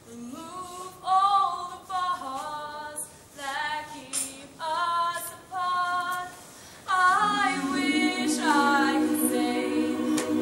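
Young women's vocal group singing a cappella: one female voice sings short phrases alone, and about seven seconds in the rest of the group comes in underneath with low held notes.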